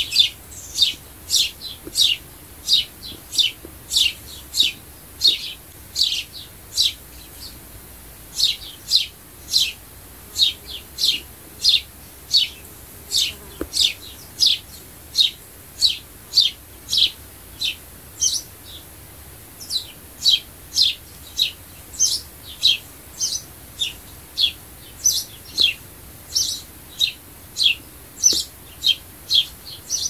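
House sparrow chirping: a steady run of short, sharp chirps that fall in pitch, about two a second, with brief pauses.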